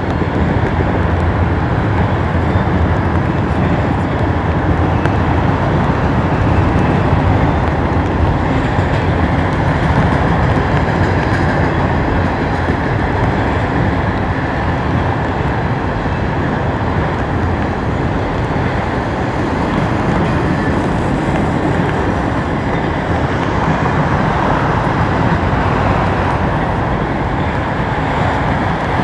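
A long string of autorack freight cars rolling past at steady speed: the continuous, even noise of steel wheels running on the rails.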